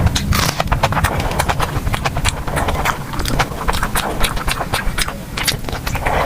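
Close-miked chewing and mouth sounds of eating: a quick, irregular run of sharp clicks over a low rumble.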